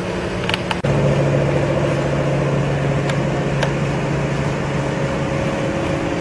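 Steady drone of a boat's diesel engine running under way. About a second in it changes abruptly to a deeper, louder drone, with a few faint clicks over it.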